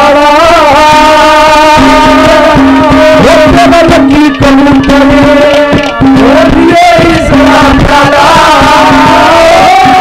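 Live Haryanvi ragni accompaniment, loud: a wavering reedy melody over a steady held low note, with frequent hand-drum beats.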